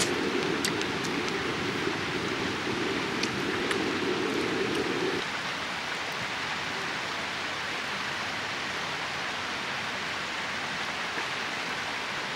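Steady rain-like hiss, with a lower rushing layer underneath that cuts off abruptly about five seconds in. A few faint light clicks come in the first few seconds.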